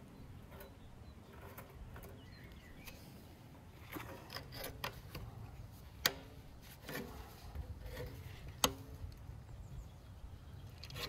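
Wire being twisted tight around a clay tandoor with a metal rod: scattered clicks and scrapes of wire and rod, with two sharper clicks about six and eight and a half seconds in.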